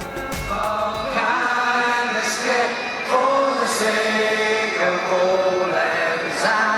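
Music with sustained, choir-like sung notes; the deep bass drops away about a second in, leaving the voices.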